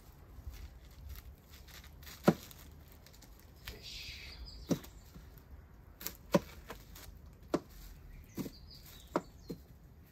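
Kitchen knife cutting an onion on a cutting board: about eight sharp knocks of the blade hitting the board at irregular intervals, with a short rustle of papery onion skin being peeled about four seconds in.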